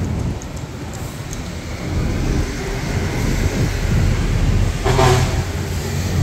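Steady rumble of street traffic, with one short pitched sound standing out about five seconds in.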